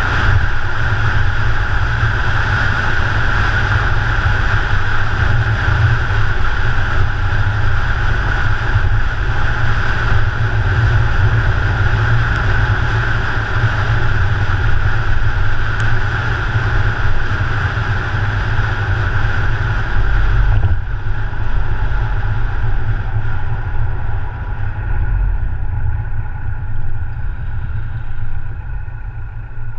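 Car driving at road speed: steady engine and tyre noise with wind buffeting the microphone. About two-thirds of the way through, the sound drops and turns duller as the car slows.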